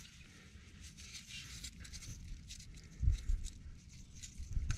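Faint rustling and small clicks of hands reaching up around a starter motor's wiring. Dull bumps come about three seconds in and again near the end.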